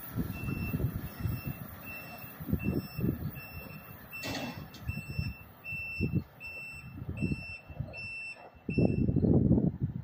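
A vehicle's reversing alarm beeping steadily, about two high beeps a second, fading out near the end. Under it come irregular low gusty rumbles, and there is one sharp crack about four seconds in.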